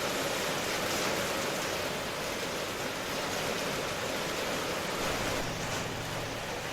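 Steady rain ambience: an even, unbroken hiss of falling rain.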